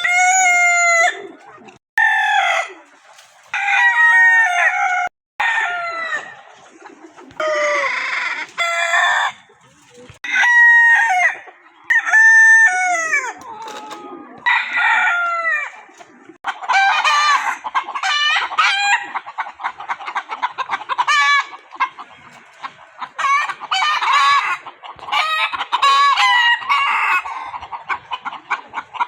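Roosters crowing one after another in short, abruptly cut clips; from about 16 seconds in, a flock of chickens clucking and crowing together without a break.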